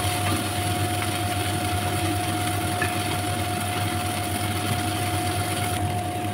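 Steady motor hum with a constant mid-pitched whine, over a light hiss from chicken frying in the pan.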